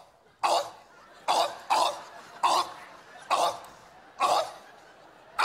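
A person's voice giving about six short, sharp cough-like bursts in a row, spaced about half a second to a second apart.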